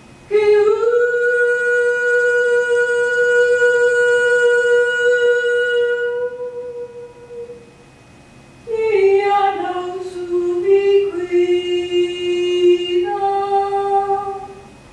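A single voice singing unaccompanied: one long, high note held for about six seconds, then after a short pause a phrase of several notes that steps down in pitch.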